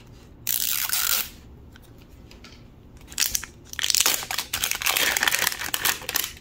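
Plastic wrapping of an L.O.L. Surprise ball crinkling and tearing as a layer is peeled off: one short burst about half a second in, then a longer run of crinkles from about three seconds in.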